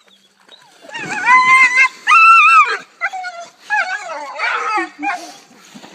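A dog whining in a series of high, drawn-out cries. The two loudest and longest come in the first half; shorter, falling whines follow.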